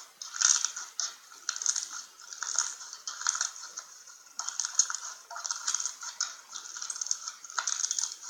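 Slime being worked by hand: a run of crackly clicking and popping bursts, about one a second.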